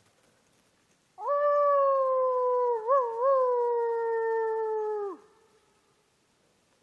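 A man imitating a wolf howl to get wolves to answer: one long howl of about four seconds, starting about a second in. Its pitch sags slowly, wavers twice in the middle and drops away at the end.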